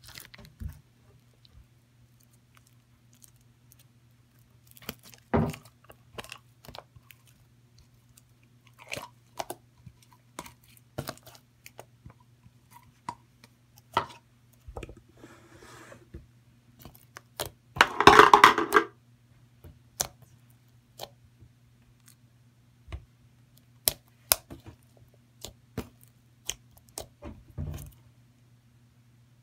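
Glossy green store-bought slime being squeezed, poked and stretched by hand, giving scattered wet clicks and pops. Past the middle comes one longer, louder squelch, the loudest sound here, over a faint steady low hum.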